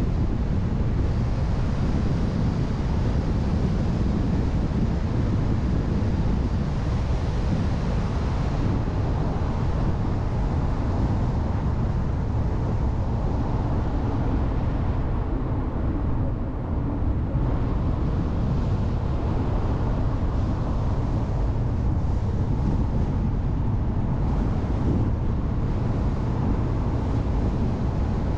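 Steady road noise of a car driving, a low rumble of tyres and engine with wind noise on the onboard camera's microphone; it dips slightly about sixteen seconds in.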